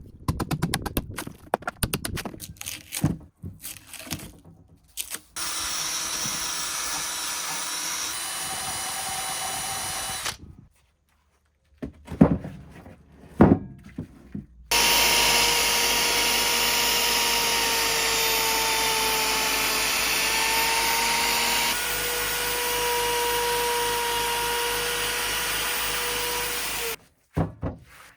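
Woodworking sounds: a quick run of knocks and taps, then an electric power tool running steadily for about five seconds. After a pause come a couple of sharp knocks, then a louder power tool runs with a steady whine for about twelve seconds and cuts off suddenly.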